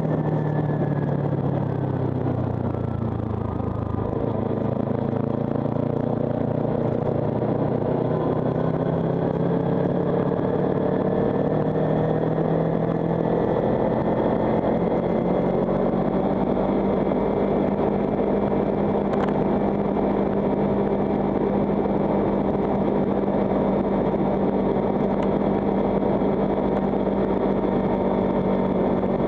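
Kawasaki Ninja 300's parallel-twin engine heard from a camera on the bike, over wind and road noise. The engine note falls over the first few seconds as the bike slows, climbs steadily as it accelerates, then holds level at a cruise.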